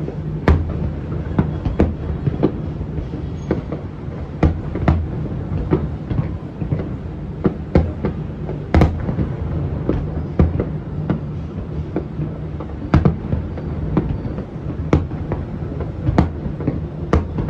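Fireworks and firecrackers going off all around: a continuous low rumble of distant bangs with irregular sharp cracks, several a second.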